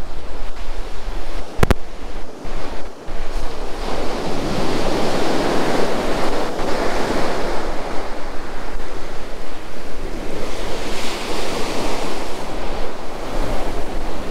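Sea surf breaking on the shore, a wash that swells up about four seconds in and again near the end, with wind buffeting the microphone throughout. There is one sharp click just under two seconds in.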